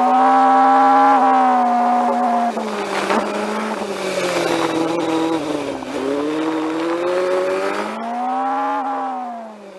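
MV Agusta Brutale motorcycle engine heard from the rider's seat, with wind noise, as the bike slows at low speed. The engine note holds steady, then drops off as the throttle closes about two and a half seconds in. It picks up again with a light blip around six seconds and falls away at the very end.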